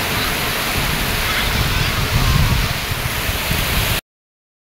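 Sea waves breaking and washing up the sand, a steady rush of surf that swells about two seconds in. It cuts off abruptly to silence about four seconds in.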